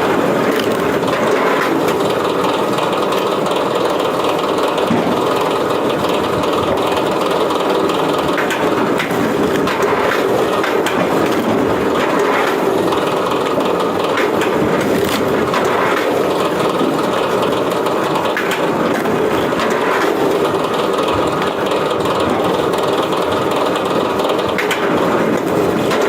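A wood-processing machine running steadily, crushing and splitting wood, with a few short sharp cracks of splintering wood.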